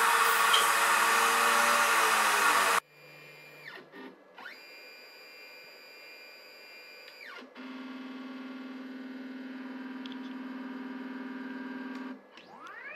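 CNC drilling rig: a loud motor whir with a hiss stops abruptly about three seconds in. Then the rig's stepper motors whine in clear, music-like tones, gliding down and up in pitch as they ramp speed, holding a steadier hum from about eight seconds in, with a rising whine near the end.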